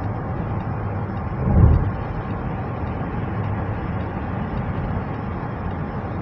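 Steady road and engine noise heard inside a car cruising on a highway, with tyre noise underneath. A short, louder low rumble comes about a second and a half in.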